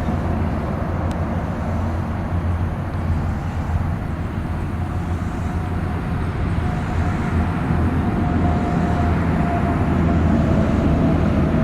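Steady rumble of highway traffic, swelling a little toward the end as a vehicle passes with a steady hum.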